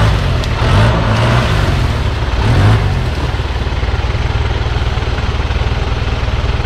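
Off-road 4x4 engine running close by, its pitch wavering with small revs for the first three seconds, then settling into a steady idle.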